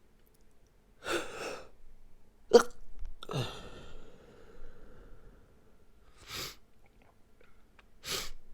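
A person stifling a sneeze during an allergy sneezing fit: a sharp breath in about a second in, then a short, choked burst of the held-in sneeze, the loudest moment, followed by a breathy release. Two more quick breaths follow near the end.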